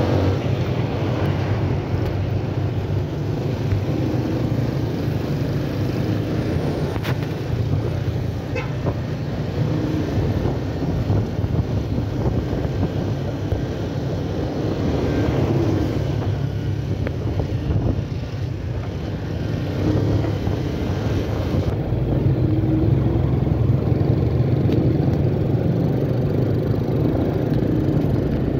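Motorcycle engine running steadily under way, heard from the rider's seat, with road traffic around it.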